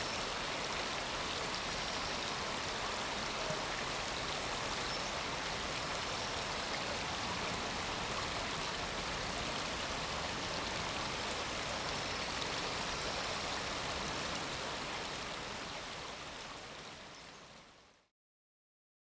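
Creek water flowing steadily, fading out over the last few seconds.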